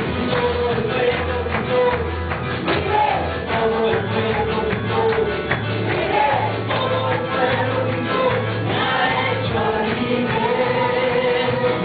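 Worship music with a group of voices singing a praise song over a pulsing bass line and steady percussion.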